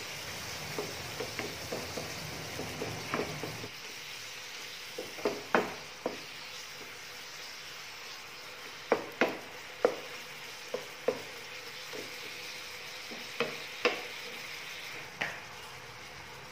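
Pieces of meat sizzling in oil in a non-stick frying pan as they are stirred with a wooden spoon: a steady hiss with scattered sharp clicks and knocks.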